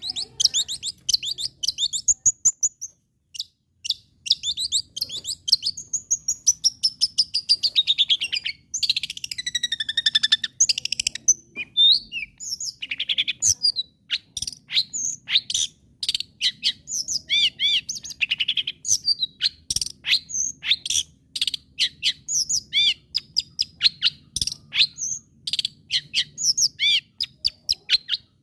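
Long-tailed shrike singing continuously: a fast, varied run of sharp chips and clicks mixed with whistled glides, with a brief pause a few seconds in.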